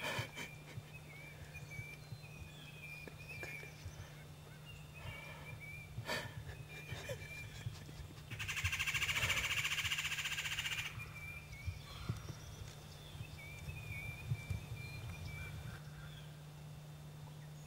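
A wild turkey's loud, rapid rattling call, like a gobble, lasting about two and a half seconds a little past the middle. Faint short chirps and a few light clicks come before and after it.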